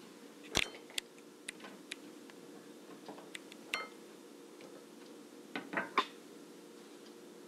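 A kitchen knife knocking on a plastic cutting board while long beans are cut, with light clinks of a ceramic plate. There are about ten scattered sharp knocks, with no steady chopping rhythm; the loudest come about half a second in and about six seconds in.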